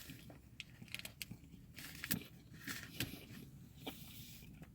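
A person chewing a mouthful of spinach and feta wrap: faint, irregular clicks and mouth sounds.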